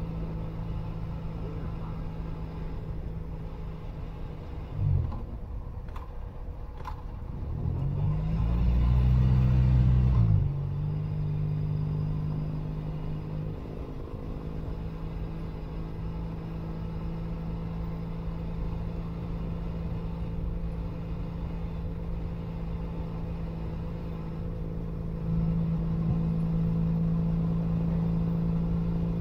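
2012 Triumph Bonneville SE's 865 cc parallel-twin engine running through a British Customs Predator exhaust under way, heard close at the exhaust. A brief blip comes about five seconds in; at about eight seconds the revs climb and fall back in a louder surge, and near the end the engine pulls louder again.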